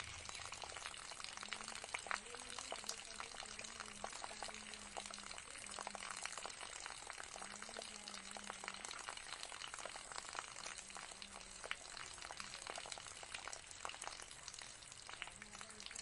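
Small tabletop jug fountain: water trickling in a thin stream from a tipped jug into a pot and spilling over into the basin below. It makes a steady splashing trickle, dotted with many small drips.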